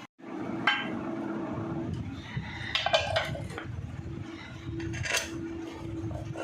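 Hero Honda CD100SS single-cylinder four-stroke engine idling steadily with a low even rumble, running quietly on a newly fitted timing chain and tensioner. A few short metallic clinks sound over it about a second in, around three seconds in, and just after five seconds.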